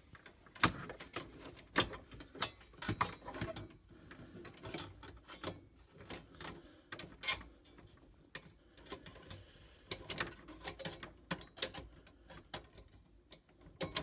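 Irregular clicks and light metallic knocks of hand tools and parts being handled inside a refrigerator's freezer compartment while defrost heater parts are fitted and screwed in.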